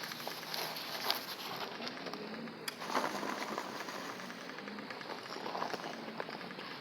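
Rain pattering steadily, with a couple of sharper knocks about one and three seconds in.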